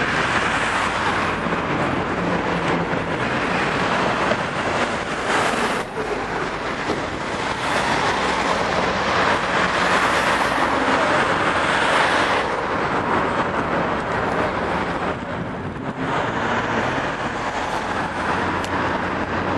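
City street traffic noise: a steady rush of passing vehicles that swells and eases, with a couple of brief lulls.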